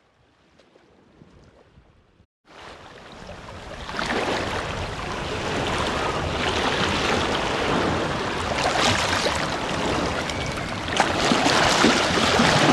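Near silence at first, then, about two and a half seconds in, small waves washing onto a sandy shoreline start up: an even rush of surf that swells within a second and a half and then keeps on steadily.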